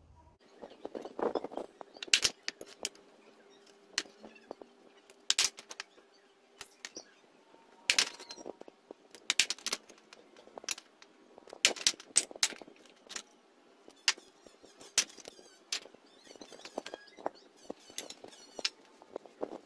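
Irregular sharp clicks, cracks and knocks as bamboo is split into strips with a steel carving knife and the knife and bamboo pieces are handled and set down on a tiled floor.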